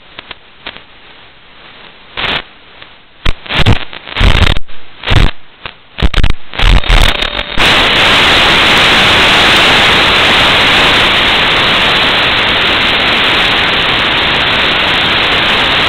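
Static from an analog FPV video receiver's audio channel as the AKK BS2 transmitter's signal breaks up. A faint hiss with a few clicks gives way, about two seconds in, to loud on-off bursts of crackle. About halfway through, it turns into a steady loud white-noise hiss as the signal is lost.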